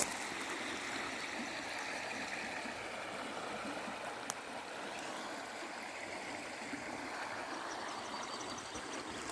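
A swollen river in flood, its fast-moving water rushing past with a steady hiss. A single sharp click sounds about four seconds in.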